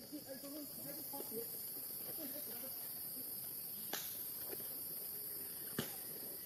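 Steady high-pitched insect chorus, with faint wavering calls in the first second and two sharp clicks about four and six seconds in.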